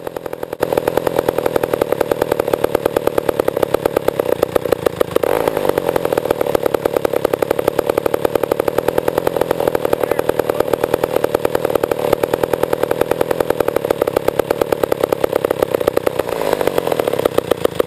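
Old Pioneer two-stroke chainsaw engine running steadily with a rapid, even firing beat; its pitch dips and comes back briefly about five seconds in and again near the end. It is running during carburetor adjustment and is still hard to get to idle.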